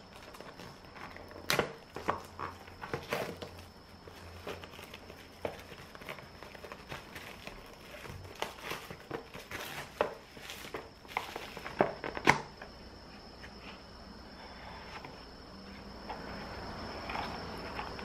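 Clear plastic film wrap crinkling and crackling as it is peeled by hand off a cardboard cupcake box, in a run of sharp crackles with two louder snaps, one near the start and one about two-thirds of the way through.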